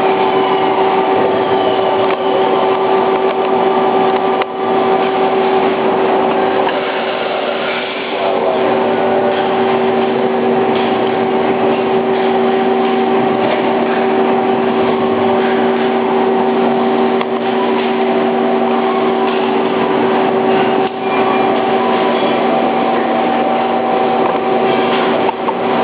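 Johnford SL-500 CNC slant-bed lathe running, a loud steady machine whine of several held tones over a dense noise. A lower tone joins about eight seconds in, and there are a few brief dips.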